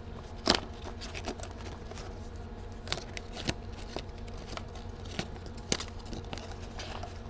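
A cardboard product box being opened and handled: a sharp snap about half a second in, then scattered clicks and light rustling of packaging, over a steady low hum.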